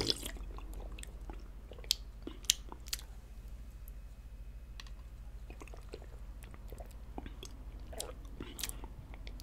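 A person drinking water from a can, close-miked: a few sharp wet swallowing clicks and gulps, spaced about half a second apart two to three seconds in, with a few fainter ones near the end.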